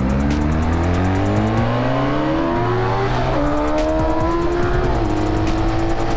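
Honda Magna cruiser's V4 engine accelerating, its pitch climbing, dropping at an upshift about three and a half seconds in and again around five seconds, then holding steady at cruise.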